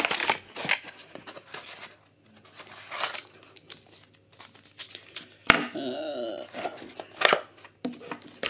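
Paper and cardboard packaging rustling and crinkling as it is handled and pulled apart, in short irregular scrapes and crinkles, with one sharp click about five and a half seconds in.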